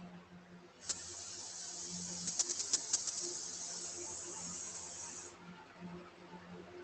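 A steady high hiss that starts with a click about a second in, crackles a few times midway, and cuts off sharply about four seconds later, over a faint low hum.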